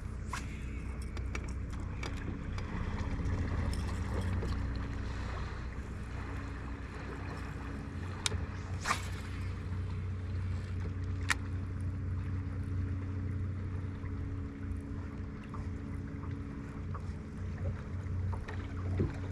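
A boat motor running steadily with a low hum, under wind and water noise, with a few sharp clicks about eight, nine and eleven seconds in.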